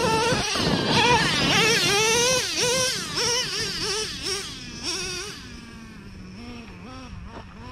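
Traxxas Revo 3.3 nitro RC truck's small two-stroke nitro engine revving up and down in quick bursts under throttle. It is loud for the first five seconds, then fades as the truck runs off.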